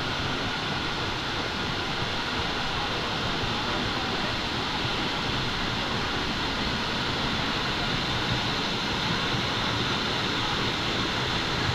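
Waterfall: water falling in a steady, unbroken rush.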